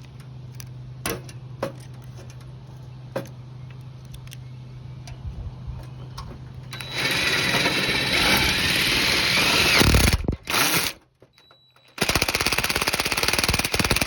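Power drill driving self-tapping screws to mount a hard drive in a PC case. After a few seconds of light clicks and handling, the drill runs loudly for about three seconds, stops briefly, then runs again with a fast rattle near the end.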